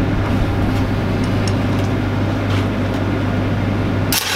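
Steady low machinery hum. About four seconds in, a welding arc strikes with a sudden loud crackling hiss as a tack weld is started on a pipe flange.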